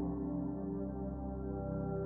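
Soft ambient background music: steady, sustained synth-like tones with no clear beat.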